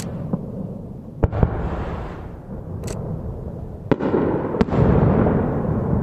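Aerial firework shells bursting: sharp booms about a second in and again near four and five seconds, each followed by a long rolling rumble of echo.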